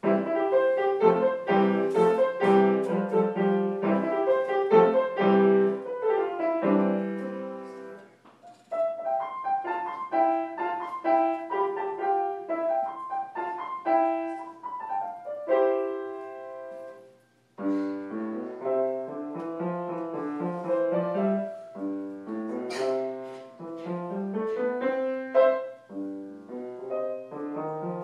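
Grand piano played solo, a classical-style piece of chords and running notes that begins at once and breaks off briefly twice, about eight and seventeen seconds in.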